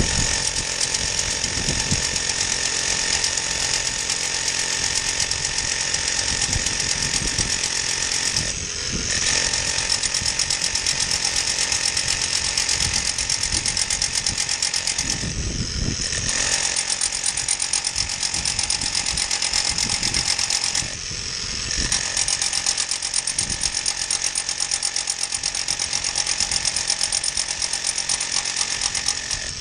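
Rotary hammer drill boring into a concrete foundation for anchor bolts: a steady rapid hammering that stops briefly three times and starts again.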